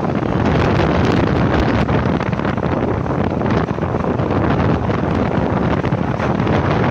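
Wind rushing over the microphone on a moving motorcycle: a loud, steady rush, with the bike and road noise mixed in underneath.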